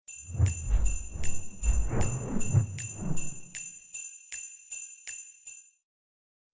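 Jingle bells shaken in an even rhythm, about two or three shakes a second, with a deep low rumble under the first half. The shakes grow fainter and stop a little before the end.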